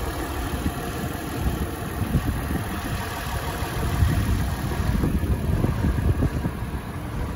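The 4.0 L V6 engine of a 2022 Toyota 4Runner idling steadily, heard with the hood open.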